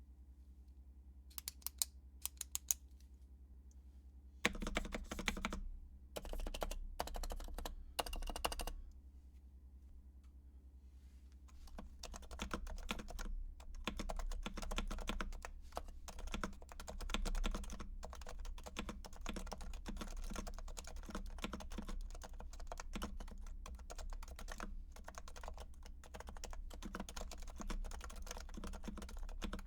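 Typing on a stock Realforce R4 keyboard with silenced 45 g Topre switches. Two short bursts of keystrokes come about five seconds in, then steady continuous typing from about twelve seconds on. A few sharp isolated clicks come about two seconds in, before the typing starts.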